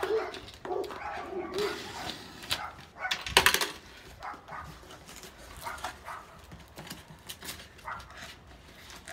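Packing tape on a cardboard shipping box being slit and torn open, with the box flaps scraping and rustling; the loudest sound is a sharp rip about three and a half seconds in.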